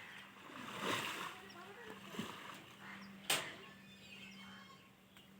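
Water splashing and sloshing, with one sharp knock about three seconds in.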